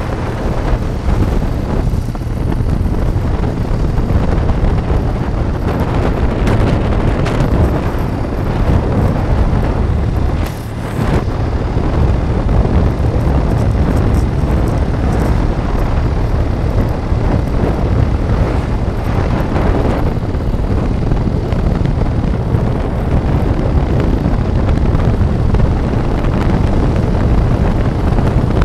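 Wind buffeting the microphone over the steady rumble of a moving vehicle on a paved road, with a brief dip in level about ten and a half seconds in.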